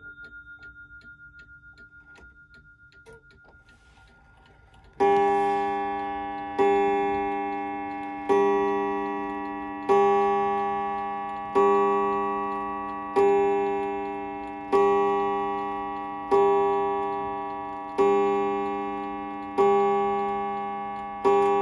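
Waterbury Adamantine mantel clock ticking faintly, then, about five seconds in, striking the hour: about eleven slow, evenly spaced strikes roughly one and a half seconds apart, each ringing out and fading before the next.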